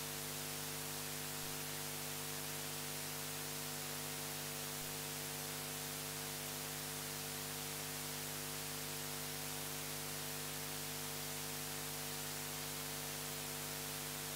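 Steady electrical hum of several tones under an even hiss, unchanging, with no other sound: mains hum and static in the recording chain.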